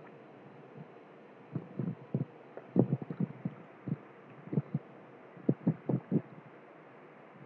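Short low thumps at irregular intervals, some in quick runs of three or four, over a faint steady hiss.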